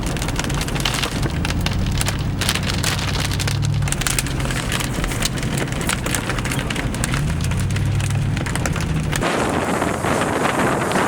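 Rain and wind beating on a storm-chase vehicle with its engine running underneath. About nine seconds in it cuts abruptly to a steady rush of wind on the microphone.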